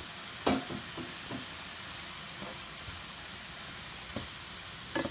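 Zucchini and mushrooms sizzling in a hot frying pan, with a wooden spoon knocking against the pan a few times as they are stirred, the loudest knock about half a second in and another near the end.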